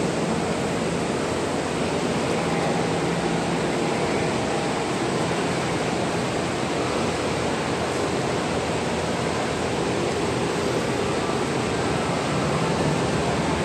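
Steady rushing noise of an underground subway platform, even in level throughout, with no distinct events.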